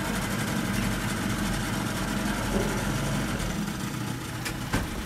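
Steady low hum of an idling engine, with two short clicks just before the end.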